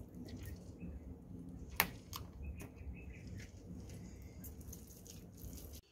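Faint wet squelching of ripe palmyra palm fruit pulp being squeezed by hand through a mesh, with a sharp click about two seconds in and a few faint bird chirps.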